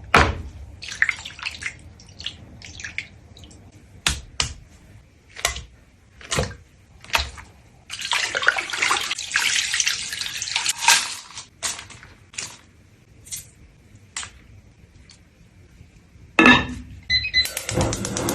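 Water splashing and dripping, as in a sink or basin, in a series of short splashes with a longer spell of continuous splashing from about eight to eleven seconds in.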